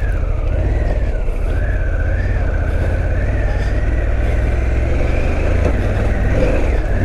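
Harley-Davidson Pan America 1250's V-twin engine running steadily under load as the bike ploughs through deep sand. A thin high whine wavers up and down in pitch over it.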